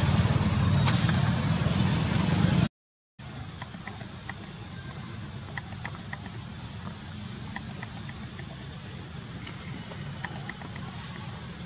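Outdoor background noise: a loud, steady low rumble for the first few seconds, cut off abruptly by a brief dead silence at an edit. After that comes a much quieter low hum with scattered short, high chirps.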